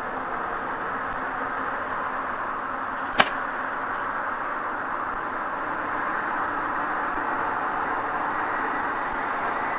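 Steady rushing background noise, with one short sharp crack about three seconds in.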